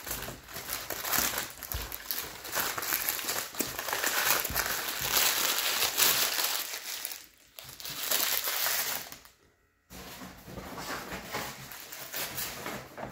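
Paper sandwich wrapper being crumpled into a ball by hand, a dense rustling crackle that breaks off briefly about nine and a half seconds in, then goes on more faintly.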